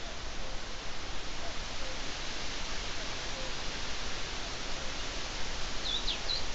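Steady hiss of outdoor ambience through the camera's microphone, with a distant bird repeating a low two-note falling call about every second and a half. Near the end a different bird gives a brief high chirp.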